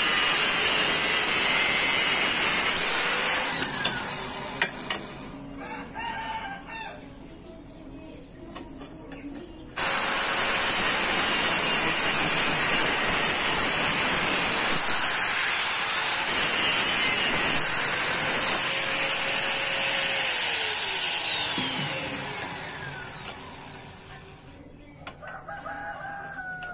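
Angle grinder with a thin cut-off disc cutting notches into square steel tube, a loud high whine. It winds down about four seconds in, starts again abruptly around ten seconds in, cuts steadily and winds down with a falling pitch a little after twenty seconds.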